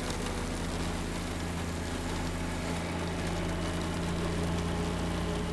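Engine of an NDM6 diesel locomotive running with a steady low hum as it hauls its coaches, under the hiss of heavy rain.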